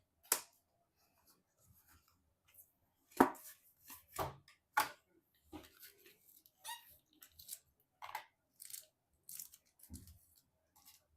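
Irregular sharp clicks and light knocks from computer parts and packaging being handled during a PC assembly, the loudest about three seconds in.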